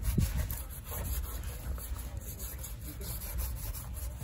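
A long knife slicing meat off a giant stingray, the blade rubbing and scraping through the flesh in short strokes over a low steady rumble.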